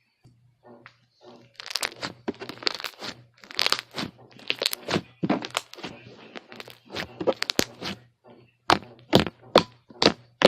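White-glue slime being squeezed and worked, giving a quick run of wet crackles, snaps and pops. Near the end the pops are sharper and louder and come about two a second.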